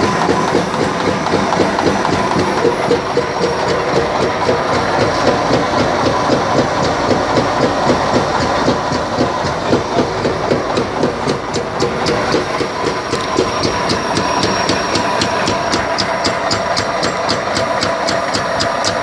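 Rice husk briquetting press running under load, its ram pounding in a fast, even rhythm over a steady mechanical hum as it compresses husk through the die.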